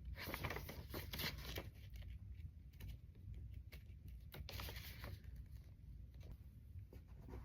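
Faint rustling and crinkling of paper and packaging being handled, in two brief bursts with a few light clicks.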